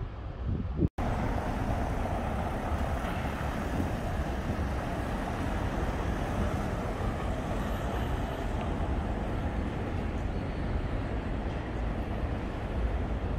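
Steady outdoor city ambience, a dense hum of traffic and street noise, broken by an abrupt edit cut about a second in.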